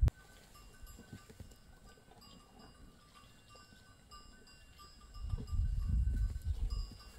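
Faint, thin ringing of livestock bells from a grazing flock, several pitches coming and going. A louder low rumble sets in a little past halfway and fades near the end.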